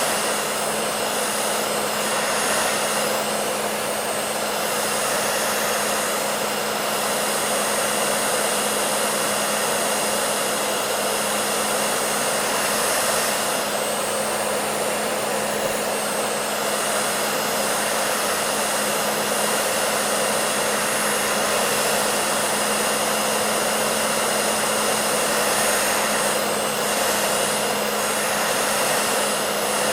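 Hair dryer running steadily: an even rush of blown air with a constant low hum from its motor.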